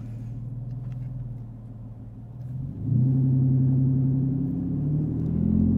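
Straight-piped exhaust of a supercharged 3.0 TFSI V6 running as the car drives off in Drive: a steady low drone, which turns louder and a little higher about three seconds in as the throttle is opened.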